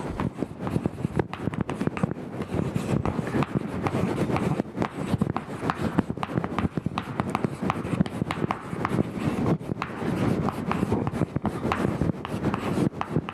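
Chalk writing on a blackboard: a rapid, continuous run of taps and scratches as each letter is drawn.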